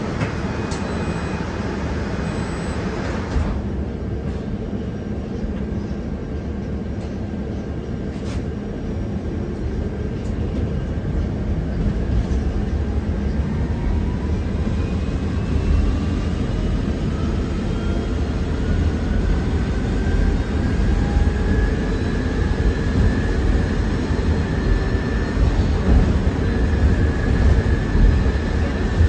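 Cabin of a KAMAZ-6282 electric bus under way on a wet road: a steady rumble and hiss of tyres and road noise. From about a third of the way in, the electric traction motor's whine climbs slowly in pitch as the bus gathers speed, and the overall noise grows a little louder.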